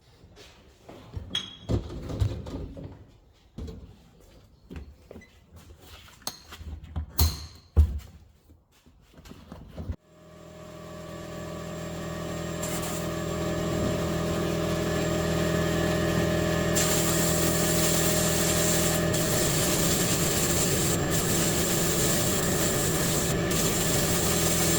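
Scattered knocks and clinks, then about ten seconds in a motor-driven workshop machine starts, winds up over a few seconds and runs with a steady hum. A hiss joins it about seven seconds later.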